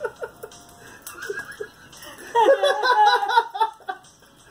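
People laughing: a loud burst of laughter starts about two seconds in and lasts over a second before it dies away.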